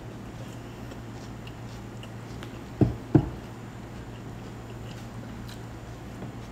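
Close-miked chewing of a red bell pepper sandwich: soft, wet mouth sounds and small clicks over a steady low hum. About three seconds in come two dull thumps, a third of a second apart, the loudest sounds here.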